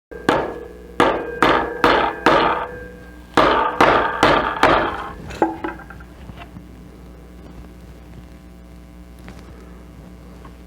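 A hammer driving tacks through a metal spring clip into a reclining chair's wooden frame: about ten sharp blows in two quick runs, some with a brief ring. The hammering stops about halfway through, leaving a faint steady hum.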